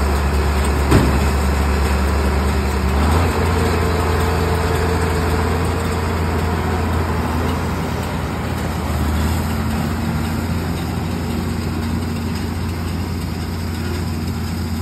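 John Deere 4430 tractor's diesel engine running steadily as it pulls a John Deere 568 round baler, the baler's drive running behind it. A single sharp clank comes about a second in, the engine note shifts about three seconds in as the rig moves off, and the sound slowly fades as it drives away.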